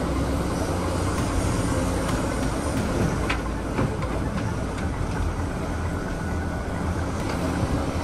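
Excavator's diesel engine running with a steady rumble while it loads soil and rock into a dump truck's steel bed, with a couple of sharp clanks a little after three seconds in as the load drops.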